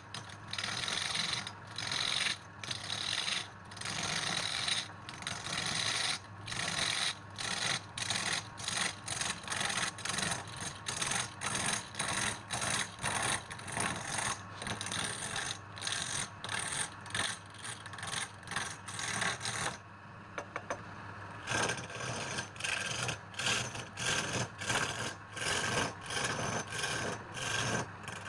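Wood lathe running while a turning tool cuts into the spinning wood in repeated passes, each pass a rough scraping hiss with short breaks between. About twenty seconds in, the cutting stops for a moment and only the lathe's steady hum is left, then the cuts resume.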